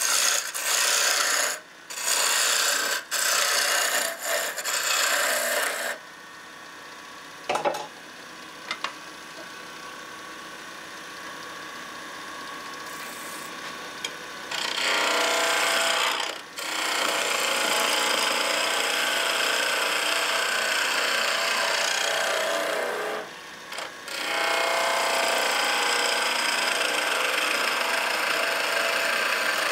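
Pine blank spinning on a wood lathe while a turning tool cuts it: hissing, scraping cutting in short bursts, then a quieter stretch of about eight seconds with the lathe running and two light knocks, then longer spells of cutting.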